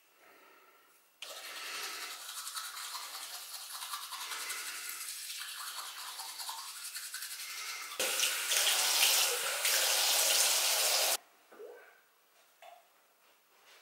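Electric toothbrush switched on about a second in, buzzing steadily for several seconds of tooth brushing. Then a bathroom tap runs loudly for about three seconds and is turned off.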